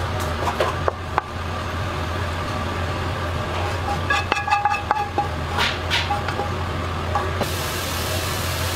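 A wok and a stainless-steel tray clinking as stir-fried glass noodles are tipped from the pan onto the tray, with a brief metallic ringing about halfway through. A steady low machine hum runs underneath.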